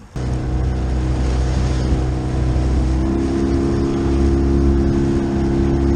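Small outboard motor on a skiff running steadily under way, cutting in abruptly just after the start; about halfway a second, higher hum joins the steady engine note.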